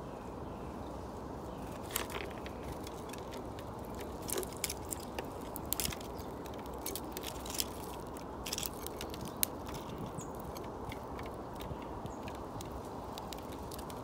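Irregular sharp clicks and taps over a steady low background hum, as of small birds such as sparrows and doves pecking at seed.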